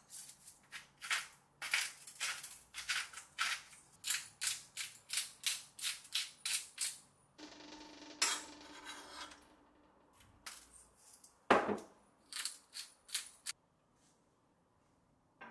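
Salt and pepper being put onto raw steaks in a stainless tray: a run of quick, evenly repeated rasping strokes, about two or three a second, for several seconds. After that comes a brief hiss, then a few scattered clicks and a knock.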